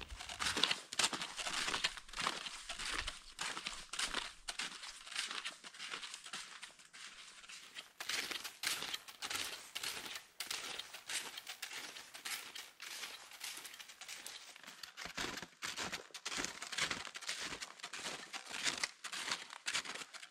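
Snowshoes crunching on packed snow, a steady run of crisp, irregular footsteps.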